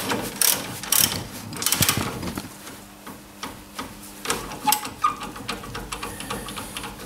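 Ratchet wrench with a 17 mm socket clicking as the brake caliper carrier bolts are worked tight, the clicks coming fast for about two seconds and then only a few scattered ones; a faint steady hum sits underneath after that.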